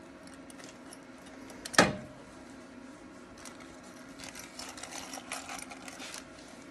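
Welder crackling for about two seconds as a patch panel is tack-welded in place, after a single sharp knock about two seconds in. A steady low hum runs underneath.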